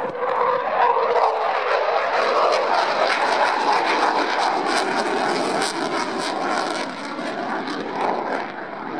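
Eurofighter Typhoon's twin EJ200 turbofan jet engines, a loud rushing noise as the fighter flies past. A lower note drops in pitch about two seconds in, and the sound fades slightly near the end.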